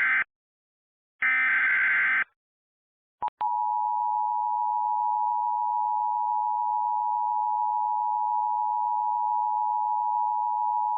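Emergency Alert System tones. The tail of one digital SAME header burst and then a second full burst, each a harsh data screech about a second long. After a short click, the two-tone attention signal sounds steadily for about eight seconds, announcing the next alert.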